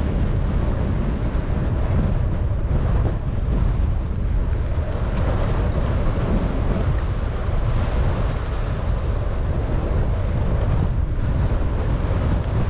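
Wind buffeting the microphone: a steady, loud low rumble that flutters unevenly, with a hiss of outdoor noise above it.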